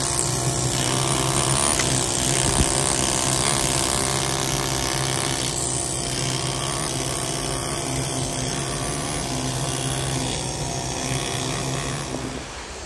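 Pneumatic air scribe (air pen) running continuously with a steady buzzing hum, chipping bulk shale matrix off a fossil block. It fades out near the end.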